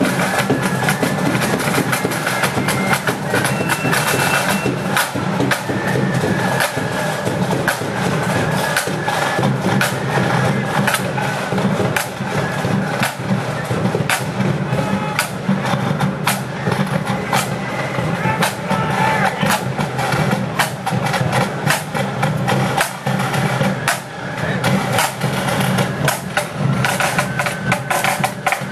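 Marching flute band playing: a flute melody over rapid snare drumming.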